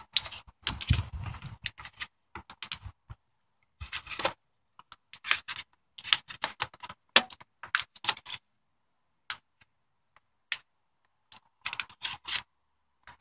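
Hand seamer clamping and folding over the standing rib of a sheet-metal roof panel: irregular clusters of short metallic clicks and scrapes as the jaws grip and bend the steel, with a quiet spell of a couple of seconds late on.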